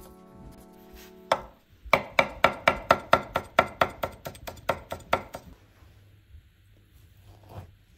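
Kitchen knife chopping a rolled green leaf on a wooden cutting board. One cut, then a quick, even run of cuts at about five a second for some three seconds, and one more light tap near the end.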